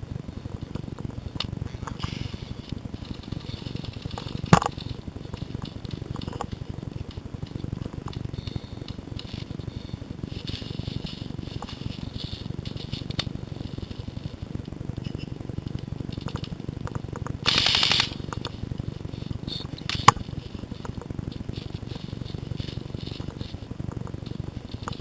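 Rumbling handling and movement noise from a camera carried by a player crouching and moving through woodland, with a few sharp snaps and a brief half-second burst of hiss later on.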